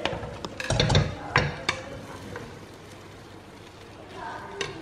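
Boiled rice being tipped from a colander and spread into a pot. Several knocks and scrapes of the colander and a utensil against the pot come in the first couple of seconds, then it goes quieter.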